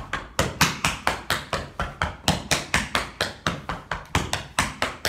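Tap shoes' metal taps striking a hard floor in a fast, even run of about five taps a second, the heel drops and brushes of eight-count tap turns done one after another.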